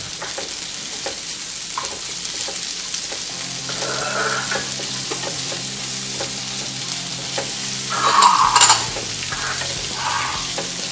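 Onion and bell pepper pieces sizzling in hot oil in a white-coated kadhai, stirred with a wooden spatula that scrapes and taps the pan. The sizzle flares up about four and again about eight seconds in, as more pepper cubes are tipped into the oil.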